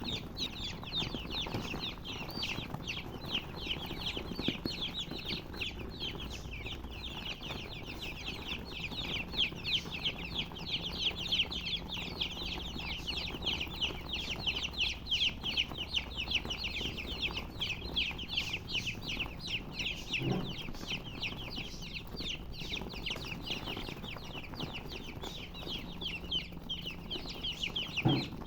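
A brood of baby chicks peeping continuously, many short high chirps overlapping in a dense stream.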